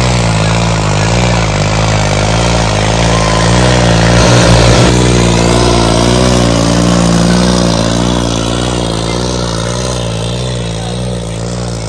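New Holland 3630 tractor's four-cylinder diesel engine running hard under the heavy load of a pulling contest, its pitch wavering. The sound grows fainter over the last few seconds as the tractor pulls away.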